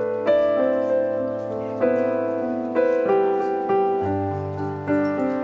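Slow background piano music: chords and single notes struck about once a second, each left to ring and fade, over held bass notes.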